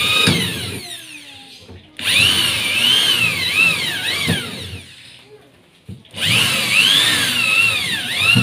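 Corded electric drill boring through galvanized sheet steel in repeated bursts. One burst winds down about a second in, another runs from about two to nearly five seconds, and a third starts about six seconds in. The motor's whine rises and falls in pitch with the trigger and the load.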